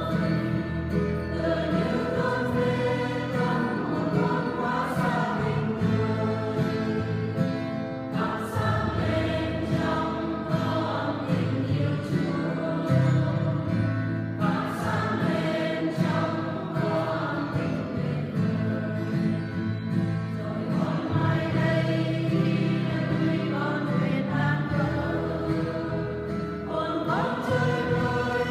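A choir singing a Vietnamese hymn with instrumental accompaniment.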